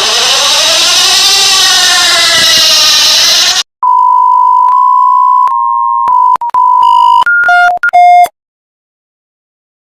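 Emergency alert siren wailing with a harsh hiss, its pitch sweeping up and down, cutting off after about three and a half seconds. It is followed by a string of loud electronic beep tones that jump between a few pitches before stopping abruptly.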